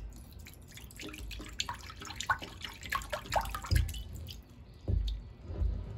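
Milky water-sealer liquid pouring from a metal can into a ceramic bowl, splashing and dripping irregularly, with a few dull low thuds in the second half.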